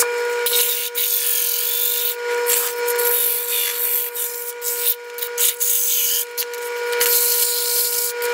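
Sandpaper rubbing on a wooden wheel pattern spinning on a wood lathe: a loud rasping hiss that rises and falls as the paper is pressed on and eased off. Under it runs the lathe's steady high whine.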